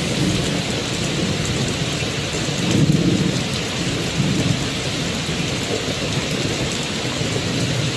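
Steady rain, with low rolls of thunder swelling about three seconds in and again a little after four.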